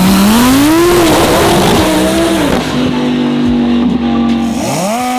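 Twin-turbo Audi R8 drag car launching and accelerating hard down the strip, its pitch rising in the first second, heard together with background music.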